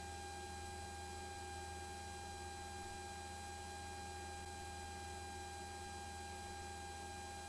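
Steady, faint electrical hum and hiss with several constant high whining tones, unchanging throughout; no speech.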